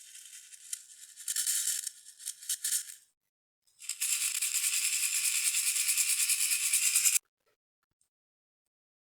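Slime being worked by hand, giving a crackly, rattling hiss: uneven for the first three seconds, then after a short pause a steady, fast-pulsed crackle for about three seconds that cuts off suddenly.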